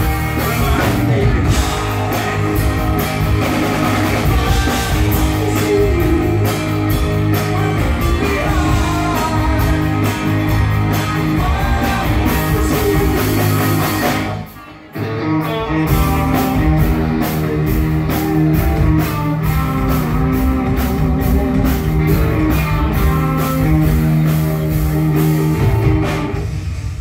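A rock band playing live: electric guitars and bass over a steady beat, with singing. About halfway through the music stops dead for a moment, then the band crashes back in.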